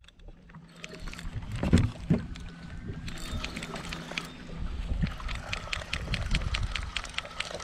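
Wind on the microphone and water against a small fishing skiff's hull, over a steady low hum. A couple of thumps come about two seconds in, then a run of quick ticks, about four or five a second, through the second half.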